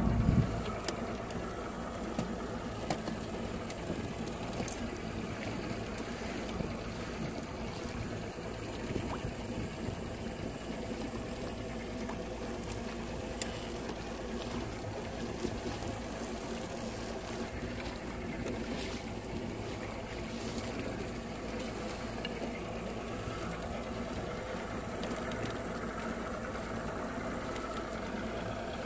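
Boat outboard motor running steadily as a fishing boat moves across choppy water, with water rushing past the hull. There is a brief louder rumble right at the start.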